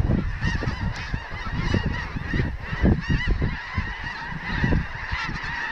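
A large flock of snow geese calling: a dense chorus of many overlapping high, yelping honks with no let-up, over low rumbling wind gusts on the microphone.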